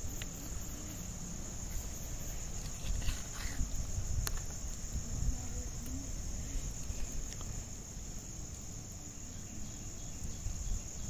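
Steady high-pitched chorus of insects, with a low rumble underneath and a few faint clicks.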